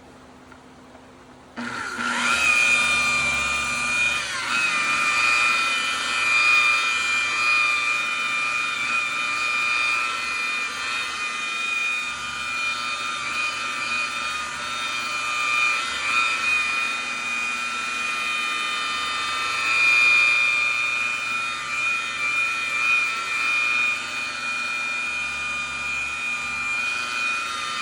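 Electric buffer (rotary polisher) switched on about a second and a half in, then running steadily with a high whine while polishing a plastic headlight lens.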